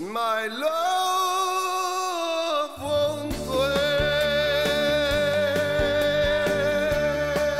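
Male singer with a live band holding out the closing notes of a ballad. His voice glides up into a held note over sparse accompaniment. About three seconds in, the full band with drums and cymbals comes back under a long, higher note sung with vibrato.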